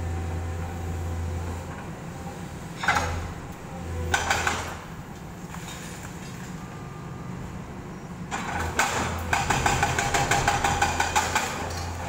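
Demolition excavator's diesel engine running steadily while concrete and debris break and fall, with two short crashes about a third of the way in and then a long run of rapid clattering, rattling impacts for the last few seconds.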